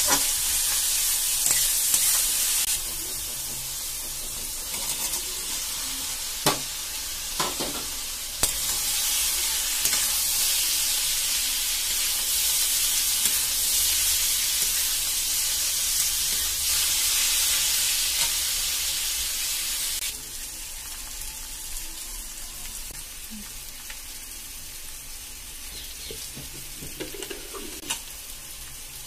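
Sliced onions and jackfruit pieces frying in oil in a metal kadhai, sizzling steadily as a metal spatula stirs and scrapes them. A few sharp knocks come around six to eight seconds in. The sizzle grows louder again for a stretch after that, then dies down to a quieter fry near the end.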